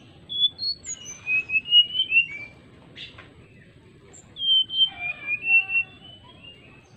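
Brown-chested jungle flycatcher (sikatan rimba dada coklat) singing: two clear, fluting whistled phrases of sliding notes, each about two seconds long, with a short pause between.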